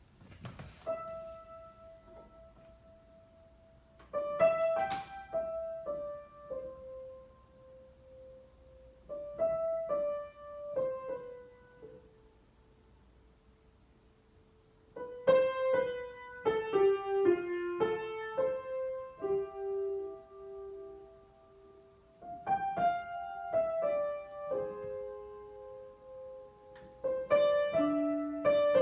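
Solo piano improvisation: short phrases of a few notes, each ringing on and fading, with quiet pauses between them. After about halfway the playing grows fuller, with more notes and chords.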